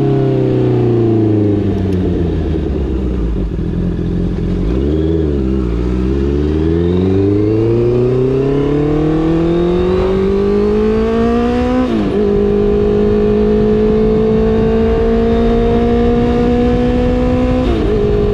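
Honda CBR650R's inline-four engine through an R9 aftermarket exhaust, ridden: the engine note falls as the bike slows, then climbs steadily under acceleration. The pitch drops suddenly with an upshift about two-thirds of the way through, then climbs again until a second upshift near the end.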